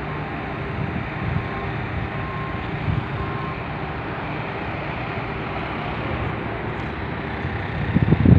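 Steady city traffic noise with a faint engine hum in it; from about eight seconds in, wind rumbles on the microphone.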